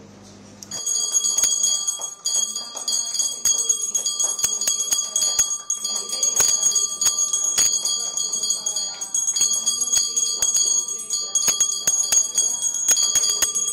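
Small hand-held puja bell rung rapidly and continuously for aarti, a bright ringing with quick repeated clapper strikes that starts about a second in.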